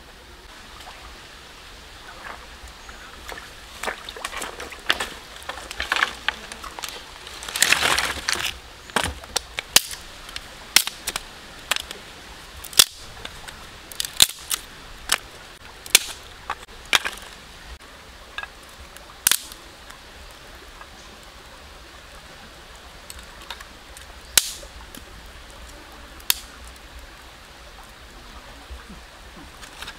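Dry twigs and sticks cracking sharply and irregularly, dozens of single cracks that are thickest in the first half and thin out later, with a longer rustle of sticks about eight seconds in.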